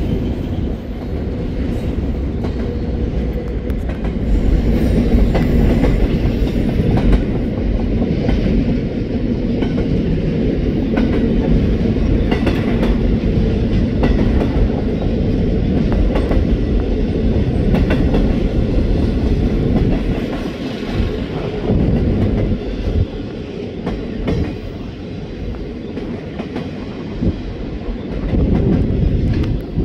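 BNSF double-stack intermodal freight train's container well cars rolling past: a steady low rumble with the wheels clicking over rail joints.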